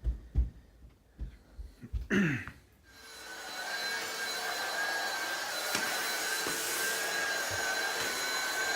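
A small electric motor-driven blower starts about three seconds in and runs steadily with a faint high whine over its rushing air. Before it starts there are a few brief knocks and a short bit of voice.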